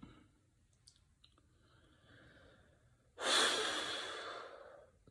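A woman's long, heavy exhale, a sigh puffed out through the mouth, starting suddenly about three seconds in and fading over nearly two seconds. It is the sigh of someone overfull and struggling to keep eating.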